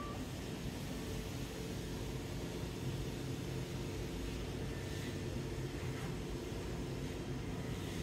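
Steady low machine hum running evenly throughout, with no change in pitch or level.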